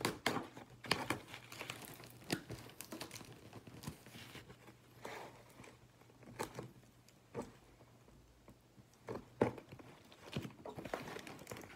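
Cardboard shipping box being opened by hand: packing tape tearing loose and the cardboard rustling and crinkling, with scattered short knocks and scrapes.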